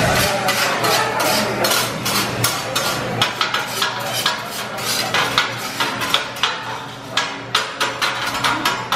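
Hibachi chef's metal spatula and knife clacking and scraping on a steel teppanyaki griddle, a run of sharp metal taps several times a second.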